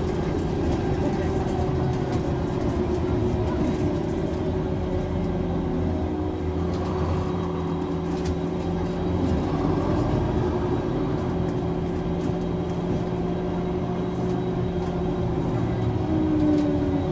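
Iveco Urbanway 12 city bus's diesel engine running steadily, heard from inside the passenger cabin, with a constant whine over the engine note and occasional light rattles.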